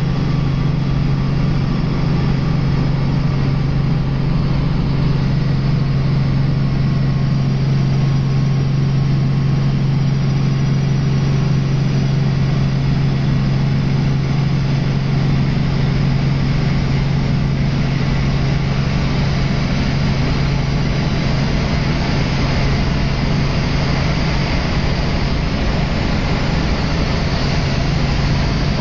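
Helicopter in flight, heard on board: a steady, loud engine and rotor sound, a constant low hum over even rushing noise.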